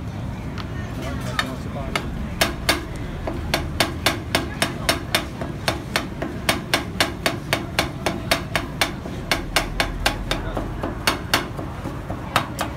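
Two metal spatulas chopping fruit into ice cream base on a frozen stainless steel plate, clacking against the metal in a fast, even rhythm of about three strikes a second, over a steady low rumble.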